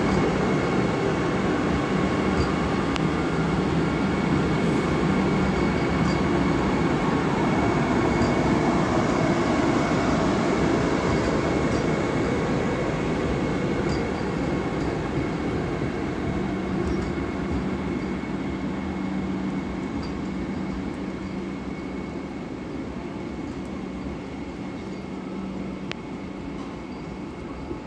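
Vande Bharat Express electric train running past at speed: a steady, dense rumble of wheels on rail with a faint steady hum in it. The rumble fades gradually over the second half as the train moves away.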